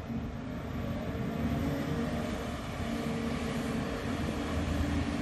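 Volvo EC290B LC excavator's diesel engine working under load as the machine digs and lifts a bucket of dirt: a steady, heavy drone.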